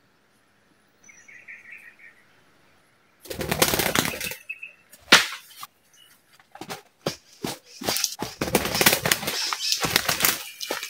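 White-eared brown doves (alimokon) beating their wings at a net trap: a loud burst of flapping about three seconds in, a single sharp flap, then repeated bursts of fluttering for several seconds.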